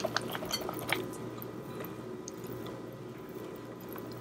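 Wire whisk beating thick flour batter in a glass bowl: a soft, wet squishing, with a few light clicks in the first second.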